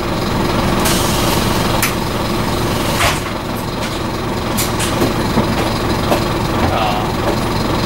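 Scania N230UD double-decker bus's five-cylinder diesel engine running steadily under way, heard from inside the upper deck with road noise. The interior fittings give short rattles and clicks several times.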